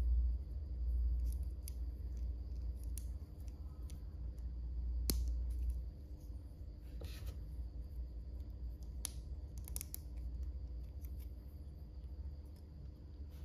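Small plastic Lego bricks being handled and pressed together: scattered sharp clicks, the sharpest about five seconds in and a short cluster around nine to ten seconds, over a low steady rumble.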